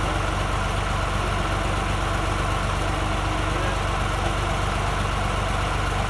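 John Deere 2240 tractor's three-cylinder diesel engine idling steadily.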